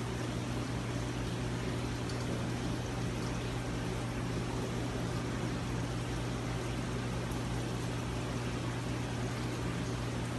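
Steady low hum of an aquarium pump running, with an even hiss of air and water over it.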